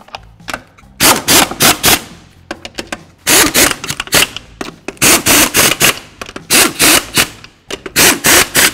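Impact wrench with a 21 mm socket running lug nuts down onto a car wheel in about six short, rapid hammering bursts, one nut after another: the wheel's lug nuts being snugged in a star pattern before final torquing.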